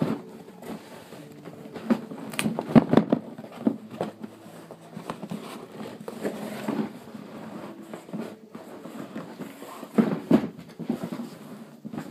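Handling noise: scattered knocks, taps and rustling, most clustered about two to three and a half seconds in and again near the end.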